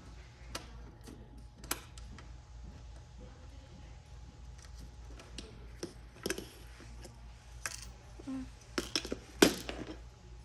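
Small parts of the H-Track being handled and popped into place: scattered light clicks and knocks, with a sharper knock near the end, over a faint steady low hum.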